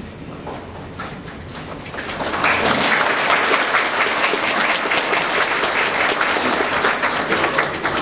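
Audience applauding: a few scattered claps at first, swelling into full applause about two seconds in, then starting to fade near the end.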